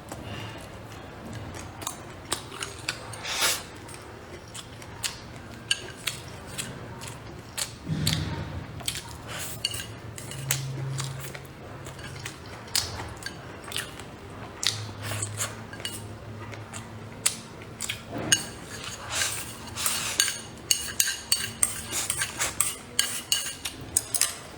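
Eating utensils clicking and tapping against bowls and plates during a meal: many irregular small clinks, coming thicker near the end.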